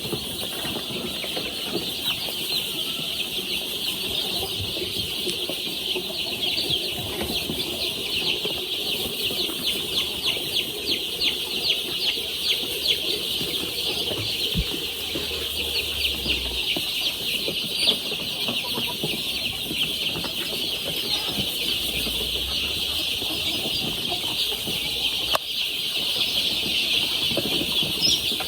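A brood of young chicks peeping continuously, many high chirps overlapping in a steady chorus.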